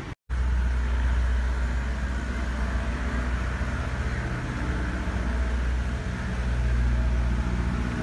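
An engine running steadily, a low hum with a deep rumble underneath, starting abruptly just after a momentary dropout.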